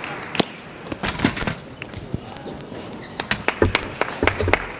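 Table tennis balls clicking on tables and bats in a hall with several matches in play: a scatter of short, sharp clicks, thickest in the last couple of seconds, with a few dull thumps near the end.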